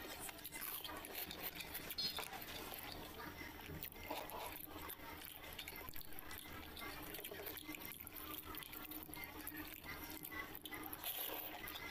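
Fingers squeezing and mixing panta bhat, rice soaked in its water, by hand in a bowl: a steady run of small wet squelches and splashes.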